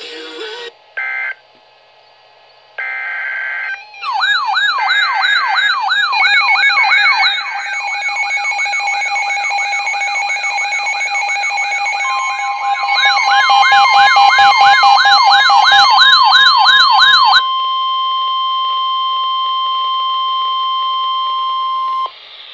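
A few short bursts of digital data tones, then an electronic siren wailing fast, about two to three up-and-down sweeps a second. About halfway through, a steady NOAA Weather Radio 1050 Hz warning alarm tone starts under the siren and carries on alone for about five seconds after the siren cuts off. Together they signal that a new warning message is about to be read.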